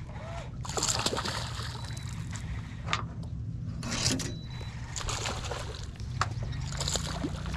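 Water sloshing and lapping against the side of an aluminum jon boat in several short splashes, over a steady low hum.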